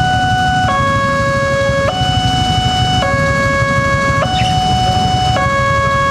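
Railway level-crossing alarm sounding: an electronic two-tone chime alternating between a higher and a lower note, each held a little over a second, over a low rumble of traffic.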